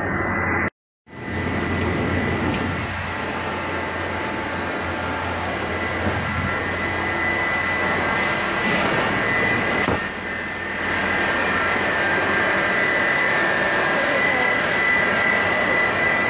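Steady factory machine noise from a running PVC flooring sheet extrusion line, with a thin high whine and a low hum throughout. The sound drops out completely for a moment about a second in.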